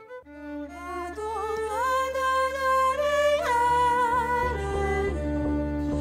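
Music starts: a bowed fiddle melody with sliding, vibrato-laden notes over a sustained low bass drone.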